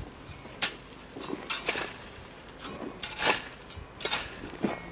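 A metal rake dragging and scraping through crushed gravel as it is spread, in a run of short crunching strokes about a second apart.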